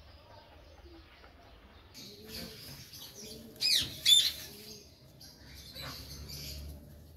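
Birds calling: soft low cooing from a dove, starting about two seconds in, and two loud, sharp calls just before and just after four seconds in.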